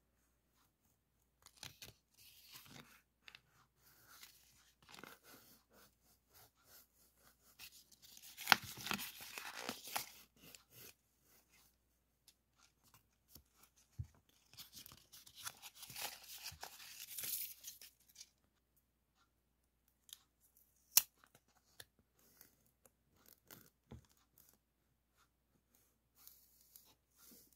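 Washi tape being peeled off its roll, a crackly tearing sound in two stretches of a few seconds each, with fainter rustling of the tape between them and a single sharp click about two-thirds of the way through.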